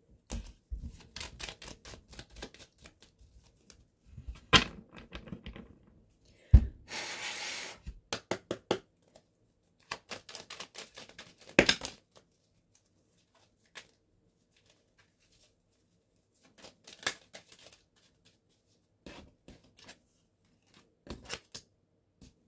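A deck of cards being handled and shuffled: scattered clicks and taps of cards against each other, a sharp thump about six and a half seconds in, then a rasping riffle for about a second.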